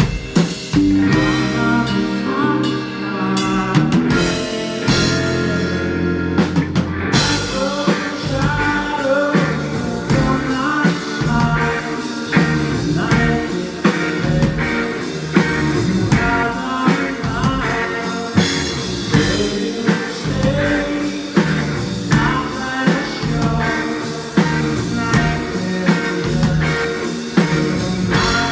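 Live rock band playing a song with a singer, drum kit and guitar; the band's sound gets fuller and brighter about seven seconds in.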